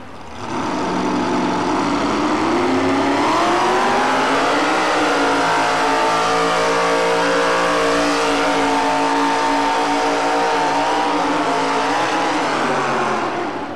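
Modified pulling truck's engine at full throttle, dragging a weight sled: the revs climb over the first few seconds, hold steady and high, then ease off near the end.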